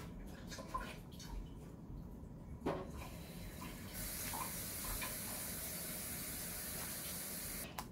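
A few light knocks of kitchen handling, then a water tap running steadily for about four seconds and shut off abruptly.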